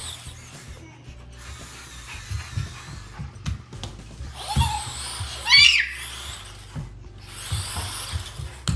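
ClicBot modular robot's small geared wheel motors whirring in uneven spells as it drives. A brief rising high-pitched chirp a little past the middle is the loudest sound.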